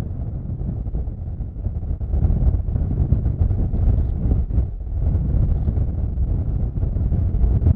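Deep, rumbling jet noise from a Boeing C-17 Globemaster III's four turbofan engines as the transport banks low past, with wind buffeting the microphone.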